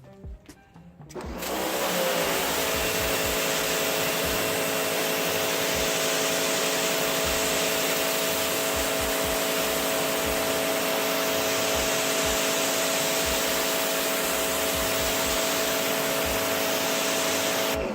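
Sun Joe SPX3000 electric pressure washer spraying concrete through its 15-degree nozzle: the steady hum of the 14.5-amp motor and pump under the loud hiss of the water jet. It starts about a second in and cuts off sharply near the end as the pump shuts off.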